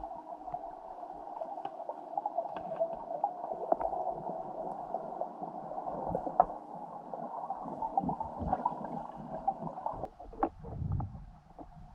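Muffled underwater sound: a steady gurgling wash dotted with small sharp clicks and taps. About ten seconds in it gives way to a lower rumble.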